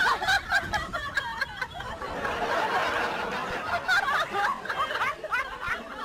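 A woman's voice in a run of quick, high-pitched, laughter-like vocal bursts.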